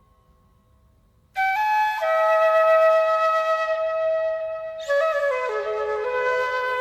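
Flute music: after a near-silent start, a flute comes in about a second and a half in with long held notes, then begins a new phrase near the end that steps down in pitch.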